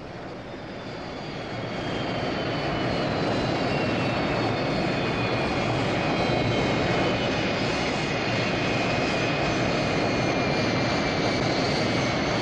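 Eagle spacecraft engine sound effect: a steady rushing roar that swells in over the first couple of seconds, with a thin high whine slowly falling in pitch.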